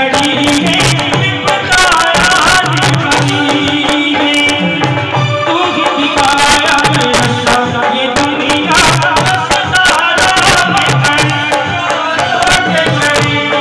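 Live jagrata devotional song: a man singing into a microphone over an electronic keyboard and drums with a steady beat.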